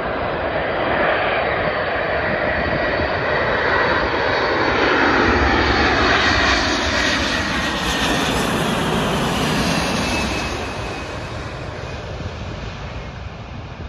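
Boeing 747-400F's four turbofan engines passing low overhead on final approach: loud jet noise that swells to a peak about five to seven seconds in, with whining tones sliding down in pitch as it goes by, then fades.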